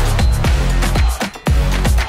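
Electronic dance music laid over the footage: a heavy, repeating kick-drum beat over deep sustained bass notes.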